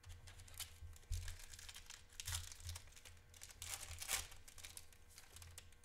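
Foil wrapper of a Panini Prizm WWE trading card pack crinkling and tearing as it is ripped open by hand, in a run of short bursts, loudest about two and four seconds in.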